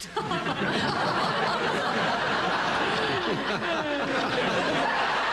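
Studio audience laughing, a sustained wave of laughter from many people at a sitcom joke.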